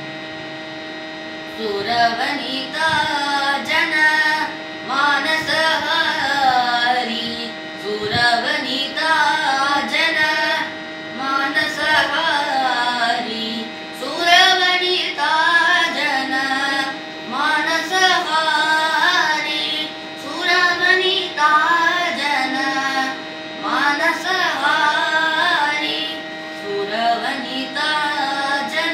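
A boy singing a Carnatic devotional song in raga Sindhubhairavi: ornamented phrases with gliding pitch, each about two seconds long with short breaths between, over a steady drone. The voice comes in about a second and a half in.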